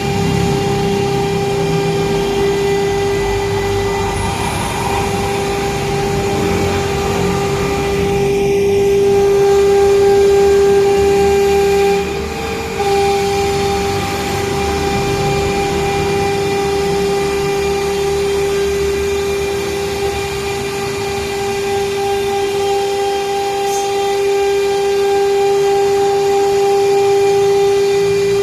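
CNC router spindle running at a constant speed with a loud, steady whine, faltering briefly about twelve seconds in.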